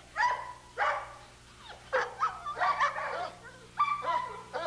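Dog barking and yipping in about six short, high-pitched bursts spread across a few seconds.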